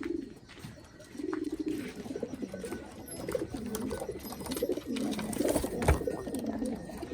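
Several domestic pigeons cooing, their low rolling coos overlapping one after another, with a sharp knock about six seconds in.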